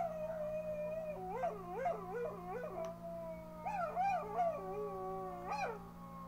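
Small Shih Tzu–type dog howling and whining, its voice wavering up and down in pitch in a run of short yowls, with longer held notes in the middle.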